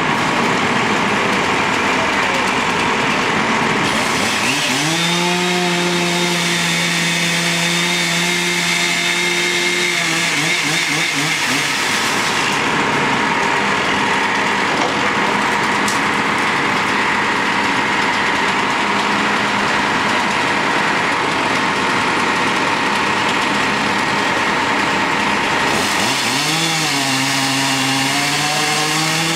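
Gasoline chainsaw cutting a fallen tree trunk into sections. About five seconds in and again near the end it revs up to a steady full-throttle pitch, over continuous loud machine noise.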